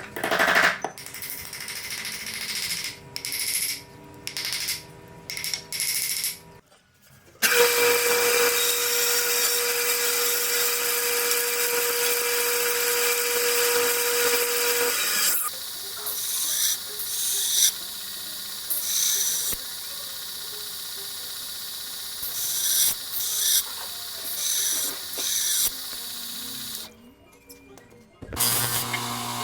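Workshop tool sounds in short edited clips; a power tool runs steadily for about seven seconds in the middle, then stops abruptly.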